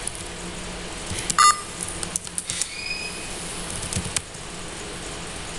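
Computer keyboard keys clicking in short bursts as a command is typed, over a steady room hum. A short, high pitched beep about a second and a half in is the loudest sound, with a fainter brief tone near the middle.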